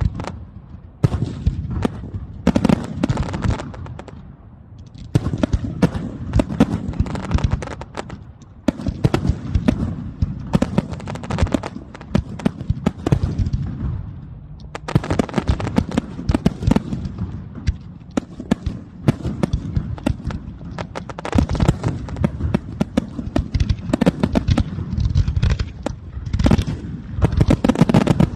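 Fireworks display: a dense, irregular barrage of bangs and crackling bursts in clusters, easing off briefly a few times before building up again.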